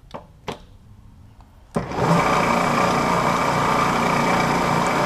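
A couple of light clicks, then about 2 s in a vertical milling machine's spindle motor switches on and runs steadily, spinning a single-edge fly cutter.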